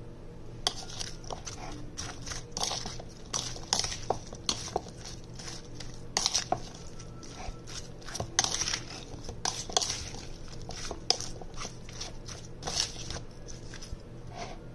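A utensil stirring raw beef chunks, onion and green onion with sauce in a plastic bowl: irregular clicks and scrapes against the bowl's side with wet sounds of the food being turned, starting about a second in and stopping just before the end.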